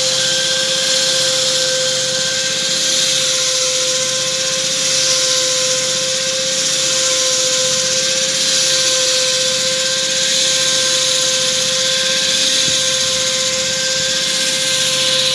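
Electric diamond core drill running steadily while cutting into concrete: a constant high motor whine over a steady hiss, with no change in speed.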